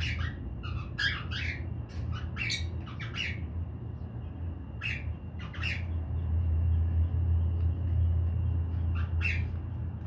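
Young lutino cockatiel giving short, raspy squawks in bursts: a quick string of them in the first few seconds, a couple more around the middle, and two near the end. A steady low rumble runs underneath and is loudest in the second half.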